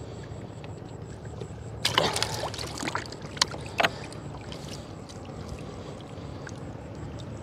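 Small fishing boat on the river: a steady low rumble, with a loud burst of noise about two seconds in and two sharp knocks a second or two later.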